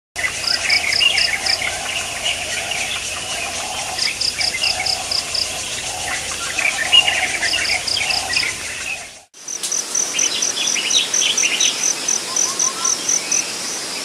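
Birds chirping over insects calling in short pulsed trills. The background changes abruptly about nine seconds in, after which a high insect pulse repeats steadily about four times a second under scattered chirps.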